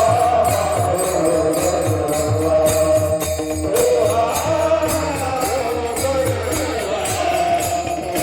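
Varkari bhajan music: a voice singing a slow, drawn-out panchapadi melody over pakhawaj drum strokes and jingling metallic percussion keeping a steady beat.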